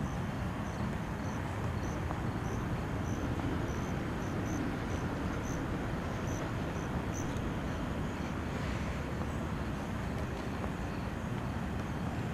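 Outdoor night ambience: a steady low rumble, with a cricket chirping faintly about twice a second.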